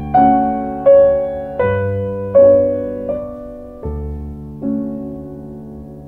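Background piano music: slow single notes struck about once every three quarters of a second, each ringing and fading.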